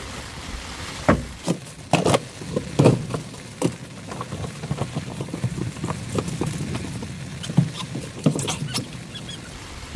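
Camping gear being handled and packed inside a tent: rustling plastic and fabric with a run of sharp knocks and clatters, loudest in the first few seconds, over a steady wash of rain and wind.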